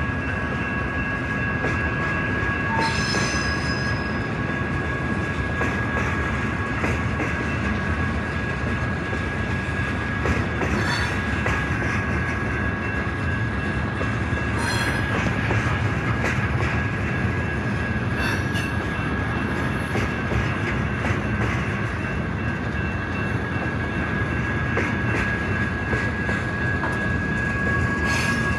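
Freight train cars rolling past close by: a steady rumble of steel wheels on rail, a continuous high-pitched wheel squeal running through it, and a few sharp clanks now and then.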